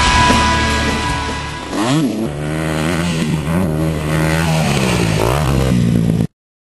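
Rock music fading out, then a dirt bike engine revving up and back down about two seconds in and running on at a steady rev with small blips. The sound cuts off abruptly near the end.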